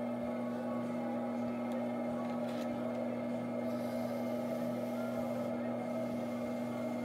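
Electric potter's wheel motor humming steadily as the wheel head spins at a constant speed.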